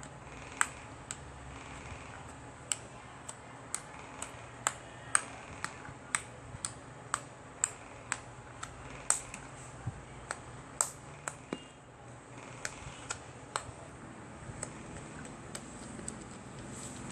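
Slime being pressed and worked, giving sharp, irregular clicking pops, roughly one or two a second.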